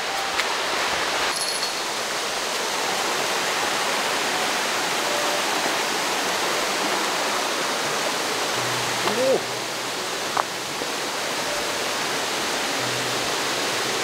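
Steady rushing hiss of a waterfall and its mountain stream, constant in level.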